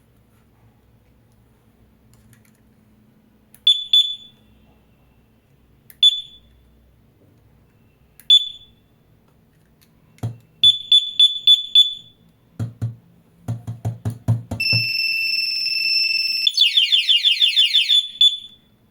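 Bike alarm beeping: a few single high chirps, then a run of five quick beeps. After a series of low knocks it goes into its full alarm, a steady two-tone wail that turns into a rapid warbling chirp and stops shortly before the end.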